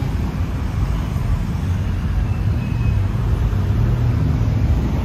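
Steady low rumble of city road traffic, with no distinct single vehicle standing out.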